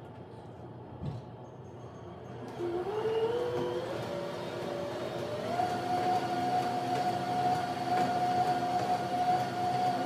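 StairMaster stepmill running, its drive motor whining. The pitch climbs in a few steps over about three seconds as the machine speeds up, then holds steady over a low rumble.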